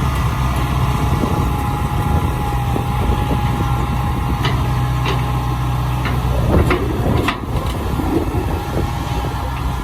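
Engine of a rice-harvesting machine running steadily with a low hum, with a few sharp clicks or knocks between about four and seven and a half seconds in.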